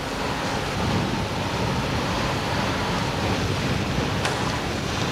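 Wind rushing and buffeting on the microphone high up a chimney, a steady rough noise with a single faint click about four seconds in.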